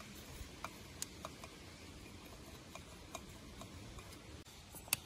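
Faint, irregular clicks and ticks as a steel band-type oil filter wrench and the oil filter are turned by hand to unscrew the filter, with one sharper click near the end.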